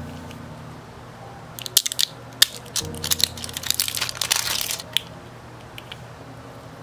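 Clear plastic packaging crinkling and crackling as it is torn and peeled off a small ink pad. A couple of sharp snaps come about two seconds in, followed by about two seconds of dense crinkling. Soft background music plays underneath.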